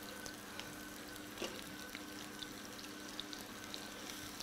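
Sliced onion, garlic and parsnip frying gently in oil in a pan: a faint, steady sizzle with scattered small crackles.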